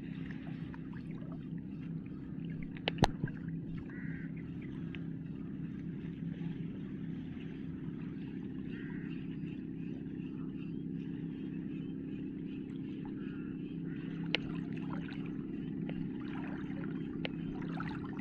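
An engine running steadily at an even low pitch, with a sharp click about three seconds in and a fainter one later.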